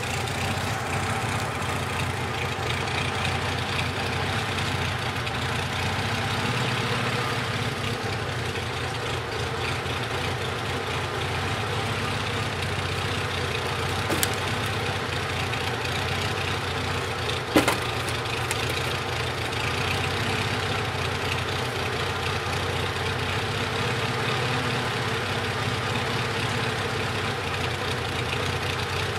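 Homemade tractor's engine idling steadily. Two sharp knocks come midway, a few seconds apart, the second louder.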